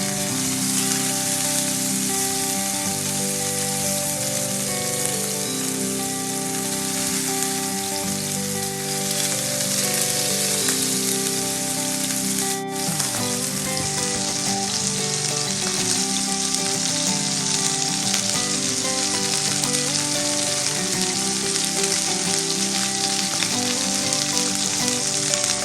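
Steaks searing in a very hot pan: a steady sizzle of the meat frying in hot oil.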